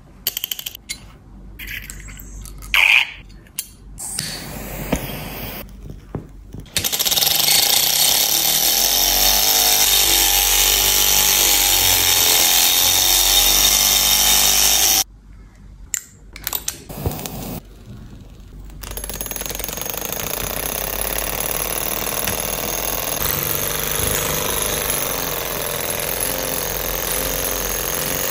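Miniature Stirling-engine tank models running: a steady, rapid mechanical clatter from about seven seconds in that stops abruptly about fifteen seconds in, then a quieter run from about nineteen seconds on. Before the first run, a few scattered clicks and knocks.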